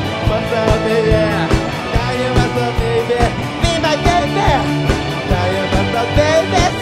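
Live rock band playing: drums keeping a steady beat under bass and electric guitars, with a lead line that bends up and down in pitch.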